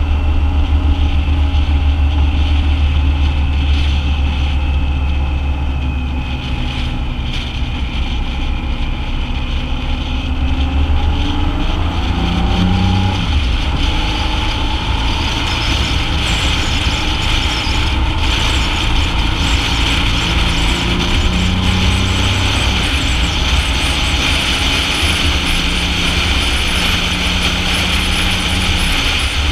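BMW motorcycle's engine running while riding along, heard from a camera mounted on the bike. The engine note shifts about twelve seconds in, and wind noise grows stronger through the second half.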